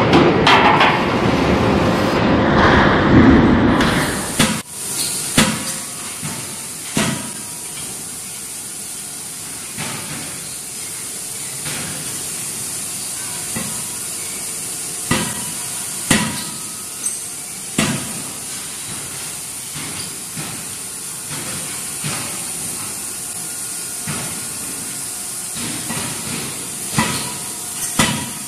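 A C92K-series CNC fully-hydraulic forging hammer striking a red-hot workpiece in a closed die: sharp blows at irregular intervals, one to a few seconds apart, over a steady high hiss. Before it, for the first four seconds, comes a louder, dense mechanical noise.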